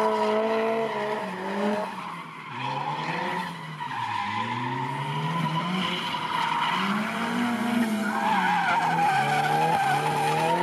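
Drift car's engine revving up and down through a slide, its pitch dropping twice in the first four seconds and rising again, with tyres squealing under the smoke-trailing drift.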